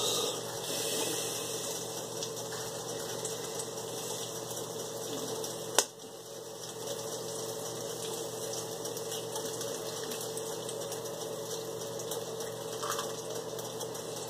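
Ham slices sizzling steadily on an electric contact griddle, with one sharp click about six seconds in.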